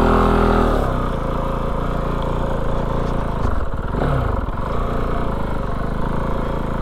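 Kove FSE 450R rally bike's 450cc single-cylinder engine idling, settling back from a throttle blip within the first second and blipped briefly again about four seconds in.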